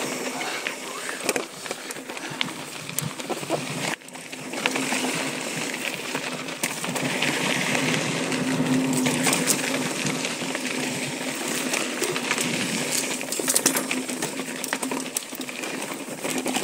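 Intense ACV mountain bike rolling fast down a dry dirt singletrack: tyres running over loose dirt and gravel, with chain and frame rattling and sharp knocks over bumps.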